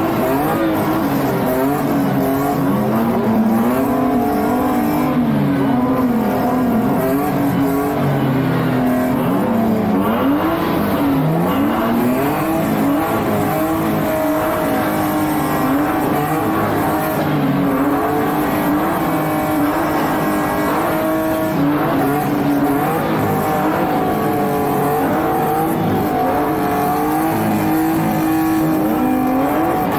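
Drift cars' engines revved hard over and over, their pitch rising and falling again and again, several engines overlapping.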